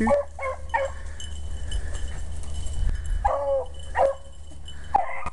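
Beagle hounds giving short baying barks as they run a rabbit, several close together near the start, one about three seconds in and one near the end, over a steady low rumble.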